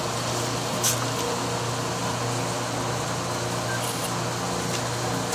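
A steady machine hum, with one light click about a second in.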